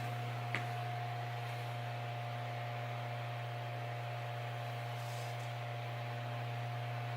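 Steady electric hum of a motor-driven kinetic drawing machine, a low drone with a thin higher whine over it and one sharp click about half a second in.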